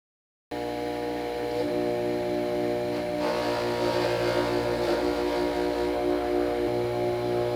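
An electric power tool's motor running steadily at speed, coming in suddenly about half a second in, with a rougher, hissier grinding sound joining about three seconds in.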